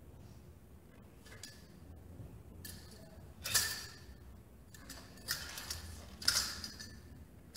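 A straight sword swishing through the air about four times, the loudest about halfway and near the end, with small ticks between.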